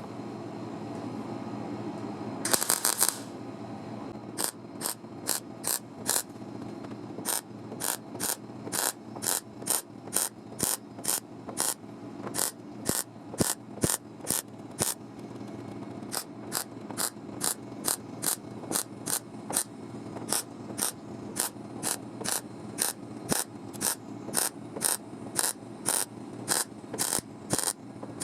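A metal hand tool clicking in quick repeated strokes, about two a second, with one longer burst before the run begins, over a steady low hum.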